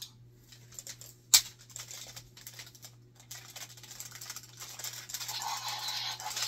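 Clicks and rattles of hard plastic toy parts being handled and fitted together, with one sharp snap about a second and a half in. Faint electronic toy sound starts to come back near the end.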